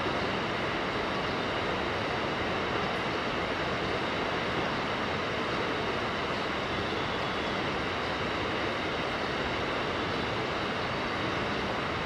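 Mountain river rushing: a steady, unbroken noise of flowing water with no distinct events.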